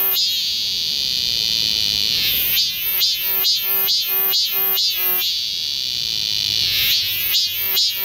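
Cicada song: runs of short pulsed buzzing notes, about two and a half a second, twice giving way to a long steady high buzz of about two seconds before the pulses start again.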